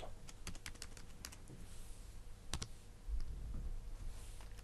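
Typing on a computer keyboard: a quick run of key clicks in the first second or so, then a few scattered single keystrokes.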